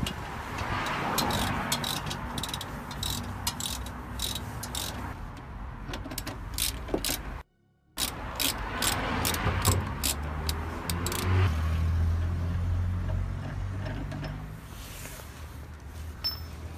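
Hand tools clicking and metal clanking as the bolts holding an Astra H rear shock absorber are undone and the shock is pulled free, over a low steady drone. The sound drops out completely for a moment about halfway through.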